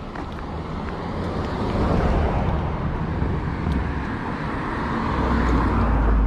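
Road traffic noise: a steady rumble of vehicles on the street that swells about two seconds in and again near the end.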